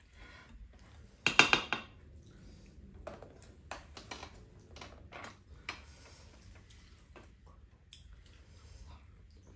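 Wooden spoons and chopsticks clattering and scraping against a stainless steel mixing bowl as bibimbap is stirred. There is a loud rattling burst about a second in, then scattered clinks.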